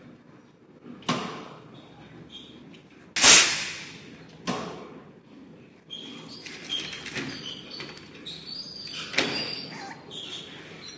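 Sharp metal knocks and bangs around a stainless-steel conveyor cooking machine. The loudest bang comes about three seconds in and rings off briefly. A run of lighter clicks and clatter follows in the second half.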